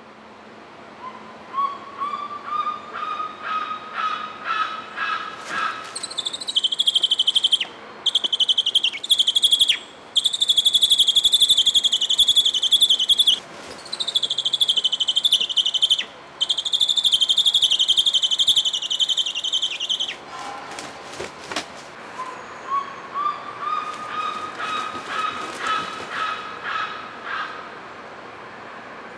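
Bearded vultures calling while mating. A run of short notes comes at about two a second, slowly rising in pitch. Then a long, loud, shrill trilling whistle, broken by a few short pauses, and after it the run of rising short notes again.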